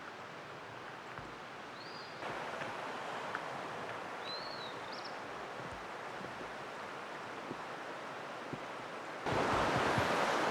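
Running water of a stream, a steady rushing that grows louder in two steps, about two seconds in and again near the end. A bird chirps a few short rising-and-falling notes over it.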